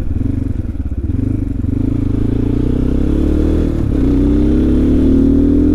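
Zongshen RX3's 250 cc single-cylinder engine accelerating away under way. Its pitch climbs steadily, dips sharply at a gear change about two-thirds of the way through, then climbs again.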